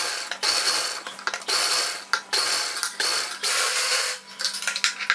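Electric-motor-driven sewing machine stitching in a string of short runs of about half a second each, with brief stops between, as a second row of stitching is run along a neckline edge.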